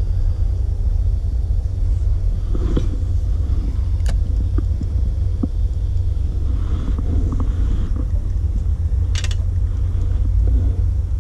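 Steady low rumble, with a few sharp clicks and rattles from handling the spinning rod and reel: one click about 4 seconds in and a short rattle about 9 seconds in.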